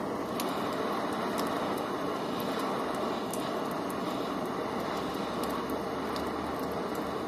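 Handheld gas torch burning with a steady rushing hiss, its flame heating oil-contaminated bicycle disc brake pads to burn the contamination out. Occasional sharp ticks sound over the hiss.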